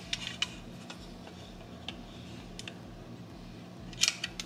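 Light clicks and taps of hard plastic as a video doorbell is handled and fitted into a black plastic holder: a few scattered clicks, then a quick cluster of louder clicks near the end.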